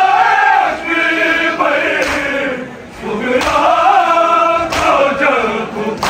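A noha, the Shia Muharram lament, chanted by a group of men in long drawn-out phrases, with brief breaks between lines.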